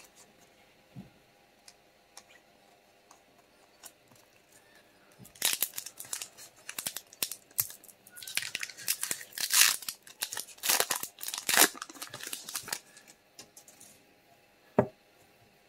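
A Pokémon card booster pack's foil wrapper being torn open and crinkled: after a quiet start, a run of crackling tears lasts about seven seconds from about five seconds in. A single sharp click comes near the end.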